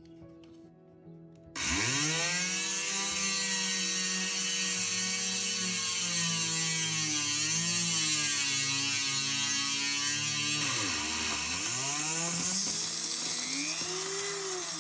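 Handheld rotary tool with a diamond tube bit starting up about a second and a half in and drilling glass: a loud, steady high-pitched motor whine over a grinding hiss. Near the end its pitch sags sharply and recovers a few times.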